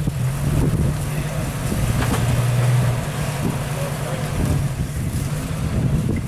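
Rock-crawler buggy's engine running at low revs as it creeps up over boulders, swelling a little about two seconds in.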